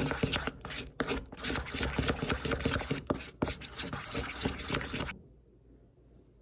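Spatula stirring and scraping modeling-mask powder mixed with water in a bowl: a quick run of wet scraping strokes that stops about five seconds in.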